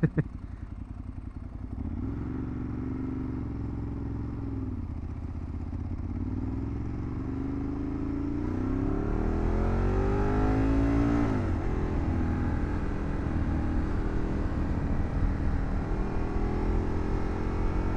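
Ducati 1098's L-twin engine under hard acceleration. The revs rise about two seconds in and hold briefly, then climb steadily for about five seconds before falling away sharply, and the engine runs on at a steady pitch.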